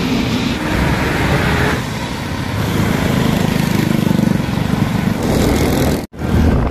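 Engine rumble and rushing wind noise from riding in traffic along a rain-wet road, with other motor vehicles passing close by. The sound drops out for a moment near the end.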